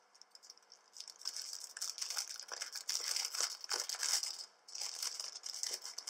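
Clear plastic cellophane bag crinkling as hands open it and work a strip of lace out. The run of crackles begins about a second in, with a short pause a little before the end.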